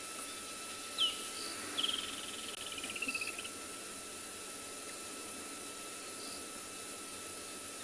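Steady drone of insects over a constant hiss, with a short falling chirp about a second in and a descending trilled call from about two to three seconds.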